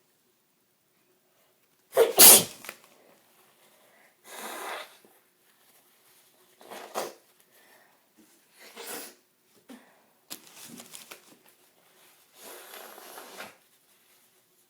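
A woman's loud, sudden sneeze about two seconds in, brought on by hay fever, followed by several quieter breathy bursts spaced a couple of seconds apart.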